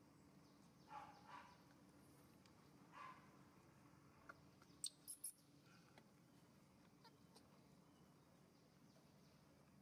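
Faint, short squeaky calls of a baby macaque, three of them in the first three seconds, then a quick run of sharp clicks about five seconds in, over a faint steady hum.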